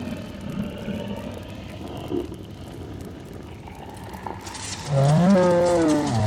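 Dragon breathing sound effect. A low, breathy rumble runs for the first few seconds, then about five seconds in a louder growl-like creature call comes in, its pitch bending up and down.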